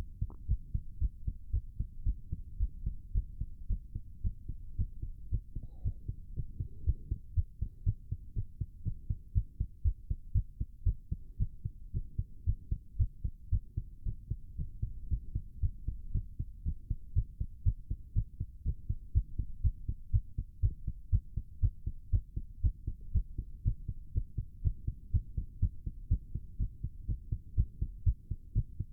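A man's heart beating fast and regularly in a steady train of low thumps, racing from the exertion of holding a plank.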